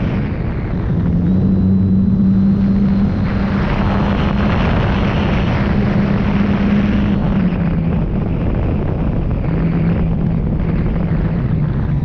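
Electric motor and propeller of an FMS 1300mm PA-18 Super Cub RC plane humming steadily under loud wind rush on the onboard camera's microphone. The hum drops in pitch about two-thirds of the way through and again near the end as the throttle is eased back for landing.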